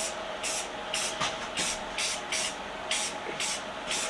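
Aerosol spray-paint can sprayed in short repeated bursts, about two a second, laying a coat of paint. A faint steady electrical hum runs underneath.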